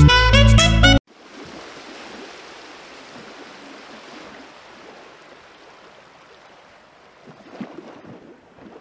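Background music cuts off about a second in, leaving the beef and coconut-milk stew simmering in the pan as it is brought to a boil: a soft, steady bubbling hiss, with a few faint clicks near the end.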